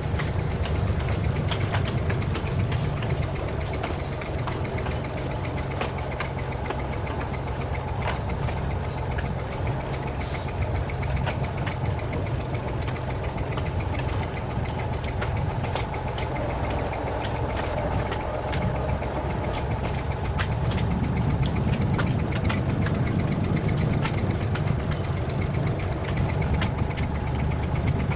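Diesel engine of a narrow-gauge train running steadily as it travels along the track, with many irregular sharp clicks and rattles over it. The engine grows louder about two-thirds of the way in.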